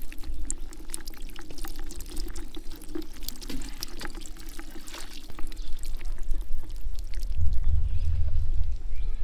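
Water pouring and trickling with small splashes and clicks. A low rumble comes in about seven seconds in.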